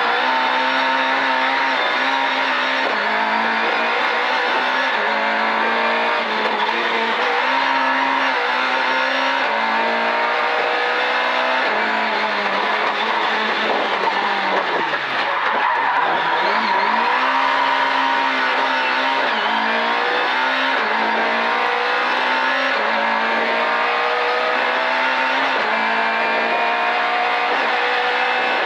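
Rally car engine at hard throttle, heard from inside the cabin, revs climbing and dropping back again and again through gear changes. About 15 seconds in the revs fall low, then climb again through the gears.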